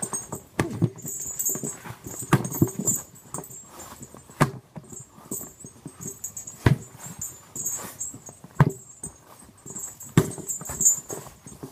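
Punches landing on a hanging stack of car tyres used as a punching bag: irregular heavy thumps, roughly one every one to two seconds, some coming in quick pairs.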